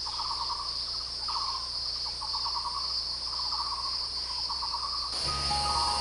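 Forest ambience of insects: a steady high-pitched drone, with a lower pulsing, trilling call repeated about once a second. Music with stepped notes comes in about five seconds in.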